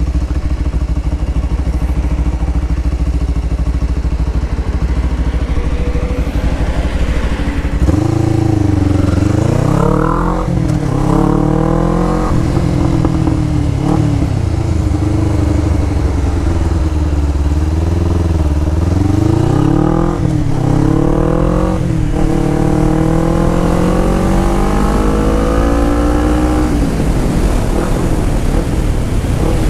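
Motorcycle engine idling in traffic, then pulling away: about eight seconds in, the engine pitch starts climbing. It rises and drops again several times as the bike shifts up through the gears and slows through a turn, then settles into a steady run near the end.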